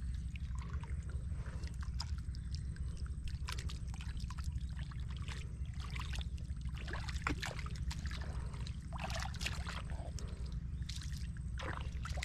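Hands digging and groping in wet mud, with irregular squelches and small splashes of water, over a steady low rumble.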